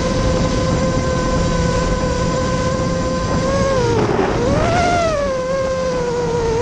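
Vortex 250 Pro racing quadcopter's motors and propellers whining steadily, heard from the onboard camera over a low wind rush. About two-thirds of the way in the pitch dips, swoops up and settles back as the throttle is cut and opened again through a turn.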